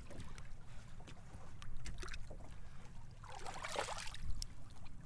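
Steady low rumble of a small fishing boat on the water, with light clicks and knocks and one short splashy burst of water about three and a half seconds in.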